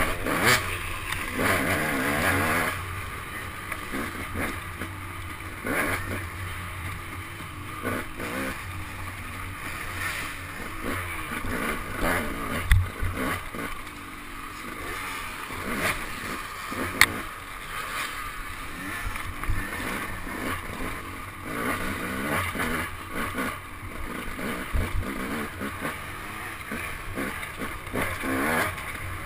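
Dirt bike engine revving up and down under hard riding over rough trail, with repeated knocks and clatter from the bumps and two sharp bangs, about 13 and 17 seconds in.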